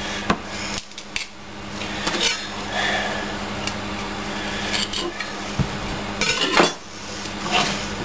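A whole cauliflower being broken down on a cutting board: leaves and florets crunching and snapping as they are pulled and cut away with a kitchen knife, with a few sharp knocks of the knife and head on the board. A steady low hum runs underneath.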